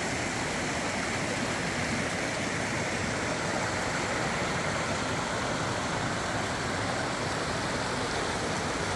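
Rocky stream rushing and tumbling over boulders in small cascades: a steady, even rush of water.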